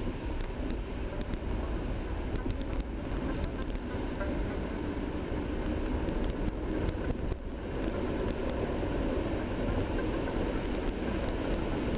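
Steady low rumble of a car driving on a snow-covered road, heard from inside the cabin: engine and tyre noise, with a few faint clicks and a brief dip in level a little past the middle.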